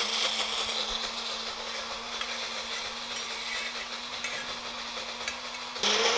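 Electric blender grinding a wet mix of sesame seeds, whole spices and water into a smooth spice paste, its motor running with a steady whir and hum. Near the end it gets louder and the hum's pitch shifts.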